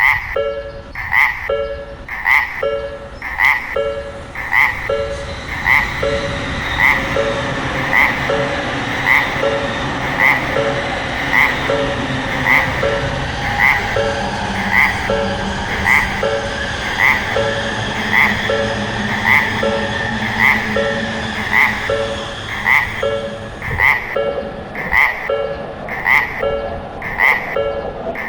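Japanese level crossing warning bell ringing its steady alternating 'kan-kan' ding, about two strikes a second. A train's rumble and rush rise under it through the middle and fade again before the end.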